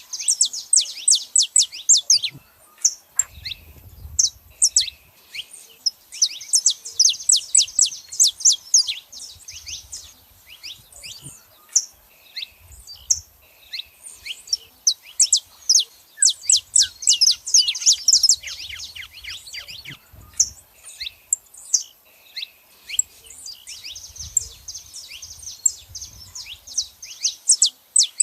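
Saffron finches calling: rapid runs of high, sharp, downward-slurred chips in bursts of a few seconds, separated by short pauses.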